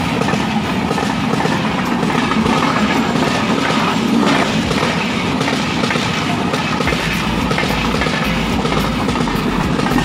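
Express passenger train passing close by at speed: a steady rumble and clatter of wheels on the rails, with a deeper rumble joining about two-thirds of the way through.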